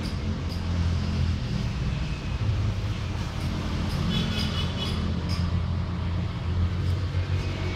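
Steady low rumble of background noise with a few faint clicks, and a brief faint high tone about four seconds in.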